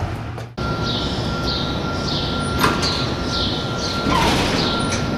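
Parking-garage elevator doors sliding, heard as a swell of noise about four seconds in. Under it runs a steady high tone, with short high chirps repeating about every two-thirds of a second and a sharp click a little past halfway.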